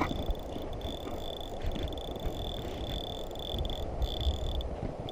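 Rushing river water and wind, with a high, even trill on top that comes in runs of about half a second to a second, broken by short gaps.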